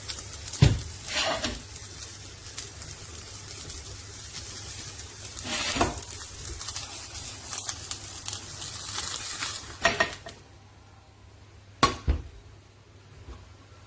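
Stainless-steel casserole pot clinking and knocking against a utensil or lid, about five sharp strikes, over a sizzling hiss that drops away about ten seconds in.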